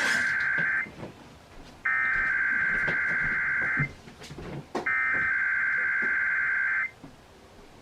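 Emergency Alert System SAME header: bursts of the rapid two-tone digital data signal, the first ending just under a second in, then two more of about two seconds each, a second apart, opening a Required Weekly Test.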